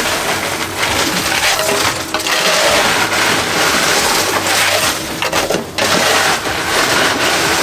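Ice in a boat's fish box crunching and clattering as a cobia is held and shifted about in it, over a steady low hum.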